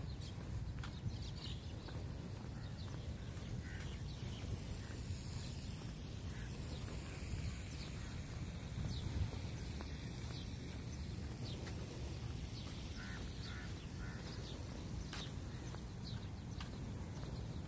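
Outdoor ambience: a steady low rumble with scattered short bird chirps.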